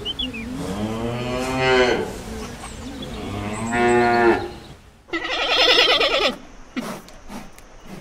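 An animal lowing: two long, deep, moo-like calls, each ending in a drop in pitch, then a higher, quavering bleat about five seconds in. A few short knocks follow near the end.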